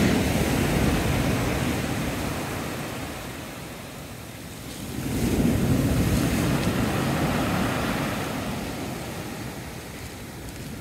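Sea waves surging onto the shore: the surf is loud at first and ebbs away, then a new wave breaks about five seconds in and slowly washes back.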